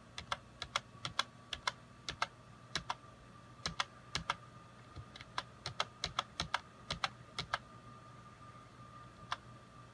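Quick, irregular clicking of a computer keyboard and mouse as a drawing program is worked, two to four clicks a second. The clicks stop about seven and a half seconds in, with one more near the end, over a faint steady electrical hum.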